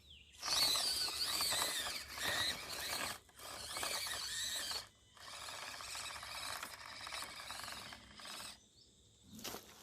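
Axial SCX24 micro RC crawler's small electric motor and gearbox whining as it is driven over rocks, in several bursts of throttle with the pitch wavering up and down, over tyres scrabbling on the rock.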